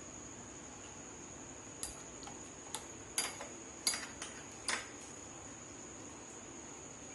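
Steel spoon clinking against a small glass bowl while scooping up mashed mango, about seven light clinks spread over a few seconds.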